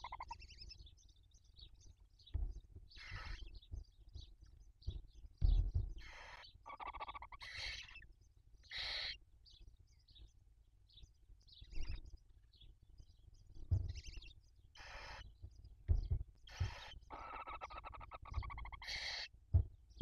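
Barn owl chicks giving their hissing, rasping begging calls in a run of short bursts while being fed, with faint high twittering between them. Several low thumps from movement in the nest, the loudest about five seconds in.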